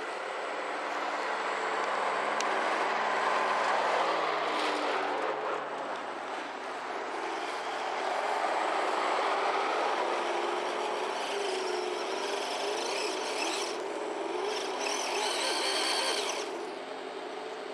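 An RC crawler's electronic engine-sound simulator plays a simulated engine through one small speaker. Its note steps lower about six seconds in, over a steady rushing noise of the truck driving. A higher whine joins for a few seconds near the end.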